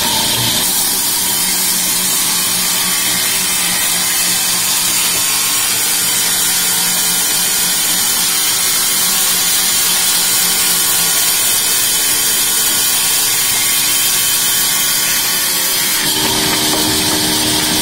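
Large sawmill band saw running and ripping a plank of acacia timber: a steady loud hiss of the blade in the wood over the machine's hum. The sound changes near the end.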